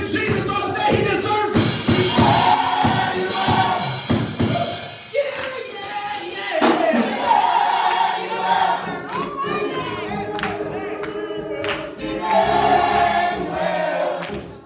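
Gospel choir and congregation singing worship music, with sustained sung notes and sharp percussive hits throughout.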